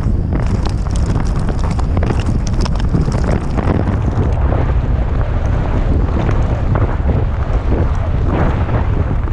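Wind buffeting an action-camera microphone, a loud low rumble, with a scatter of short knocks and rattles through it.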